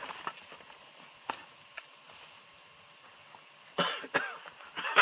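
Quiet with a few faint clicks, then a person coughing loudly a few times near the end.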